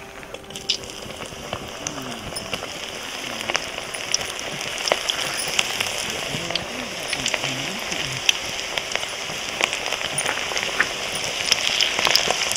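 Onion pakodi deep-frying in hot oil: a dense sizzle full of crackles and pops. It picks up about half a second in and grows louder toward the end.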